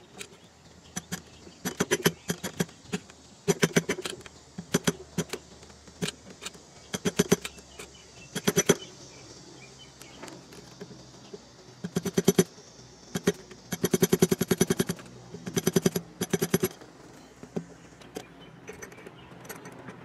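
A steel pick scraping, prying and clicking against the metal case and terminals of an old garden-tractor ignition switch, in irregular bursts of rapid clicks with short pauses between them.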